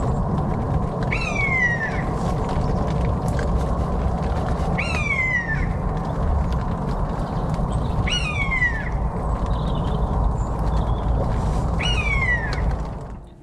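Common buzzard calling four times, a drawn-out call that slides down in pitch, repeated about every three to four seconds over a steady low rumble.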